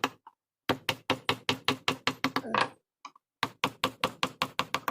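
Mallet tapping a carving chisel into hardwood in quick runs of sharp knocks, about six a second, with a brief pause about three seconds in.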